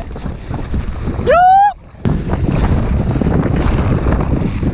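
Wind buffeting a helmet camera's microphone and a downhill mountain bike rattling over a dry dirt trail at speed. A short rising whoop comes about a second and a half in, and there is a brief quieter gap with a click near the middle.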